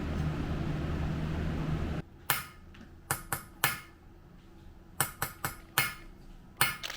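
A steady motor hum that stops abruptly about two seconds in, followed by sharp hammer taps in small groups of two to four, typical of knocking a Japanese kitchen knife's handle onto its tang.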